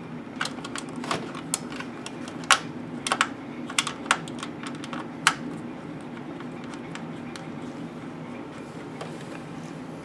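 Irregular sharp plastic-and-metal clicks and taps from a Corsair H110 CPU cooler's pump block and its thumb screws being fitted by hand onto the motherboard, about nine in the first five seconds, then they stop, leaving a low steady hum.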